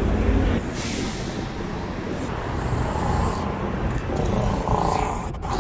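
Road noise heard while riding a bicycle in traffic: a steady rumble and hiss of passing motor vehicles and air movement, with a faint engine hum in the middle and a brief break near the end.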